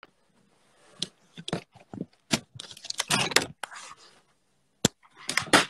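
Phone handled close to its microphone as it is picked up: a run of sharp clicks and knocks with rubbing and rustling, starting about a second in.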